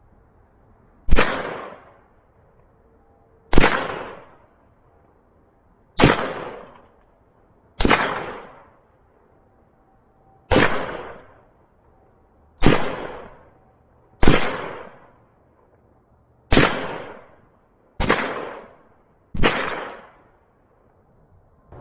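Ten single gunshots fired one at a time, spaced unevenly about one and a half to two and a half seconds apart, each dying away over about a second.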